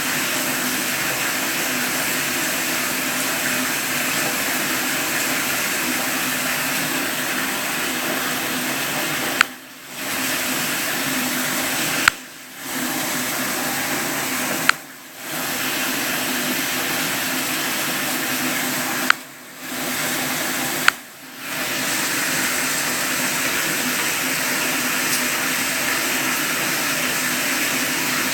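Steady rushing water with a low hum under it. It is broken five times by a sharp click from the Galaxy S7 Edge being handled, and each click is followed by a brief drop in the water noise.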